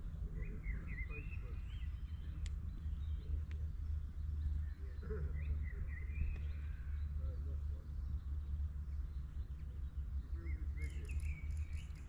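Steady low rumble of wind on the microphone, with a songbird singing short chirping phrases three times: near the start, in the middle and near the end. A fast, faint ticking starts near the end.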